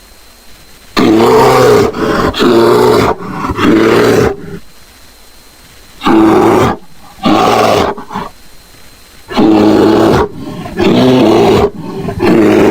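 Cartoon gorilla roar sound effect: eight loud, pitched roars of about a second each, in groups of three, two and three with short pauses between the groups.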